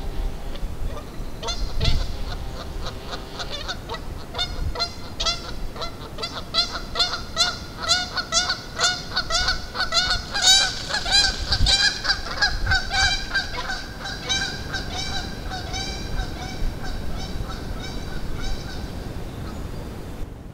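Canada geese honking in a long, fast series of calls, two or three a second, loudest about halfway through and tapering off near the end.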